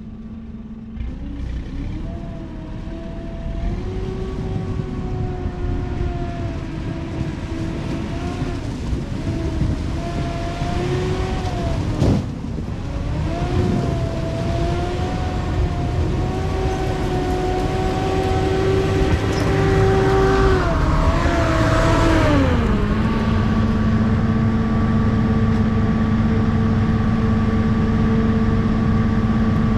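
Amphibious off-road vehicle's engine running hard, its pitch wavering up and down. About two-thirds of the way through the pitch glides down and settles into a steady, lower hum. A single sharp crack comes about twelve seconds in.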